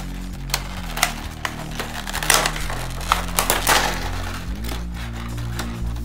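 Stiff clear plastic blister trays crackling and clacking as they are handled and set down, the sharpest crackles a couple of seconds in. Background music with sustained low notes plays underneath.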